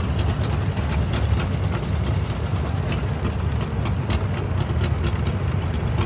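Antique farm tractor engines running at low speed as they parade by: a steady low engine drone with irregular quick ticks over it.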